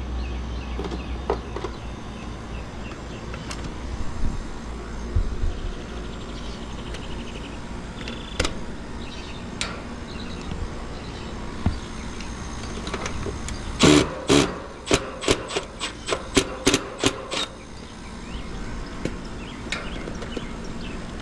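Hands and tools working on an outdoor air-conditioner condenser cabinet: a steady low hum with a few scattered clicks, then a quick run of about a dozen sharp knocks and clicks a little past the middle.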